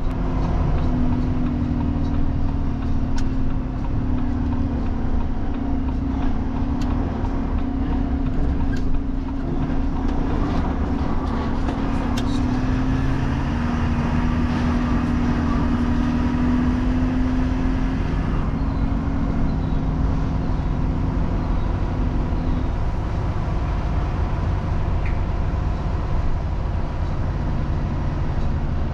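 Heavy truck's diesel engine running steadily with a low rumble. A droning hum rides over it and stops about two-thirds of the way through while the engine keeps running.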